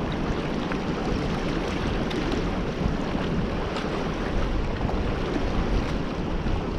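Fast-flowing river rushing steadily, with wind buffeting the microphone.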